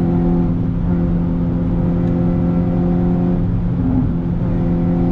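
Renault Sandero RS's naturally aspirated 2.0-litre four-cylinder engine heard from inside the cabin under way, holding a steady, unchanging pitch.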